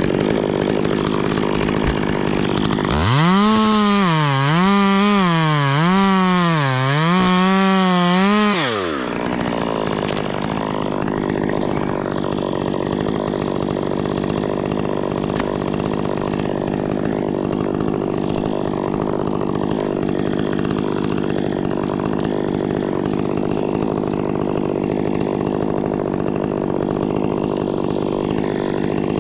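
Stihl 201 top-handle two-stroke chainsaw with a 16-inch bar, cutting a dead pine trunk into firewood rounds. About three seconds in it revs up to full throttle, and its pitch dips and recovers several times as it bites into the wood. Around nine seconds in it falls back to a lower speed and runs steadily.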